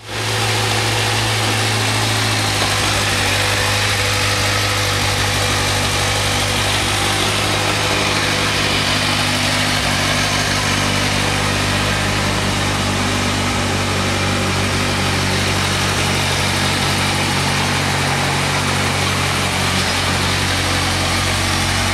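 Kawasaki Versys 1000's inline-four engine idling steadily.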